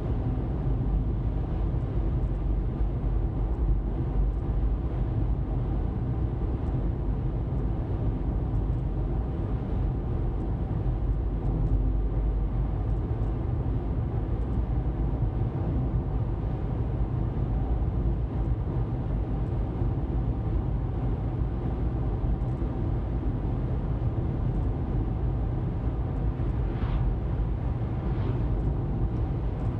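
Steady road noise of a car driving at speed: a low tyre rumble with a faint, even engine hum.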